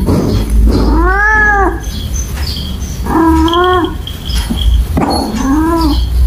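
A cat yowling three times, each drawn-out call rising then falling in pitch: the cries of an annoyed cat.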